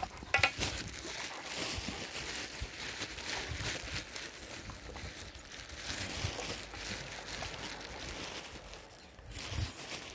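Rottweilers lapping and chewing yogurt from a metal pan: a dense, irregular run of wet licking and smacking sounds.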